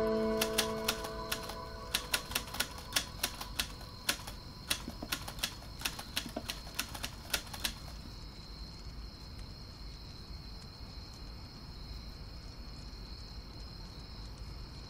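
Typewriter keys clacking in an irregular run of sharp strikes for nearly eight seconds, then stopping. A faint steady high whine and hiss follow.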